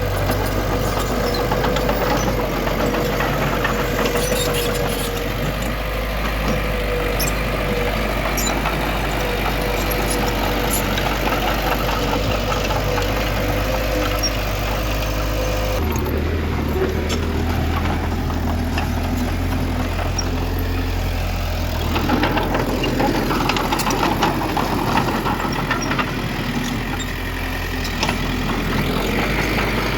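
Diesel engines of heavy earthmoving machinery running steadily. About halfway through, the engine sound changes abruptly to a different low pitch.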